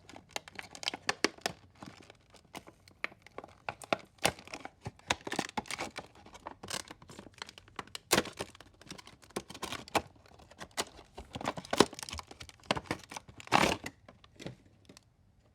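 Plastic packaging crinkling and tearing, with many irregular crackles and clicks, as small nail polish bottles are handled and unwrapped.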